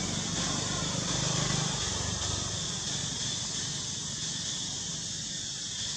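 Steady outdoor ambience: a high, even insect hiss, with a low engine-like rumble that is strongest in the first two seconds and then fades.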